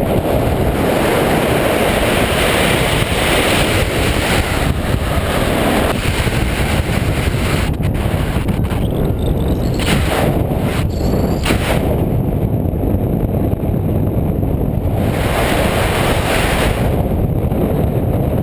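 Airflow from a paraglider's forward flight rushing and buffeting over the harness-mounted camera's microphone, a loud steady rumble with a few brief crackles around the middle.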